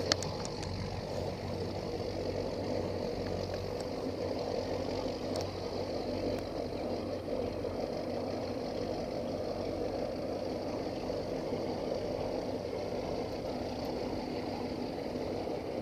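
Motorboat's engine running steadily at low speed. There is a brief sharp click right at the start.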